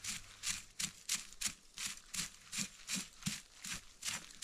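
Footsteps of someone walking through the woods, each step a short crunch in a steady rhythm of about two to three steps a second.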